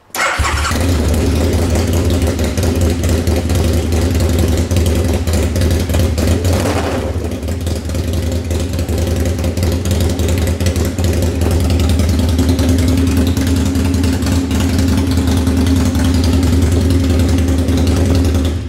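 2009 Aprilia Tuono 1000R's V-twin engine starting and idling with its exhaust cans removed, running loud and unmuffled straight from the open header pipes. It catches at once and cuts off suddenly at the end.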